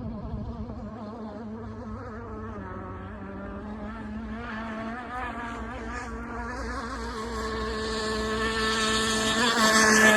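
Gas-powered RC hydroplane's two-stroke engine buzzing at speed on the water, its pitch wavering, growing steadily louder and peaking near the end as the boat passes close by.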